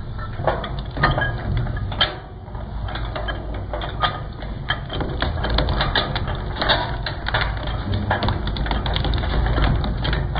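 Twin-shaft shredder's rotating cutters pulling in and cutting up a white electrical cable. A steady low motor hum runs under many quick, irregular clicks and cracks as the insulation and wire are cut.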